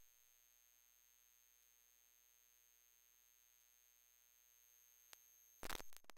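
Near silence: a faint, steady, high-pitched electronic whine, with a brief crackle of clicks near the end.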